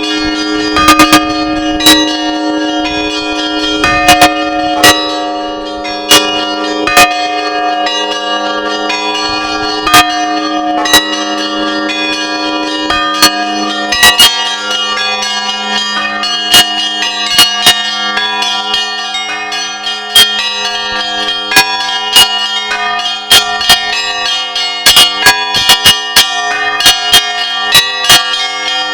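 Russian Orthodox church bells rung by hand from a bell tower for the Easter feast: several bells of different pitches struck in a rhythmic peal, their tones ringing on and overlapping. The strikes come faster and closer together near the end.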